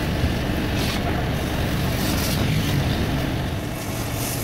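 Hitachi excavator's diesel engine running steadily.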